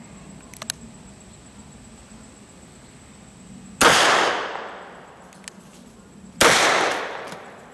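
Two shots from a Taurus Raging Judge (M513) revolver firing .45 Long Colt, about two and a half seconds apart, each trailing off in a long echo.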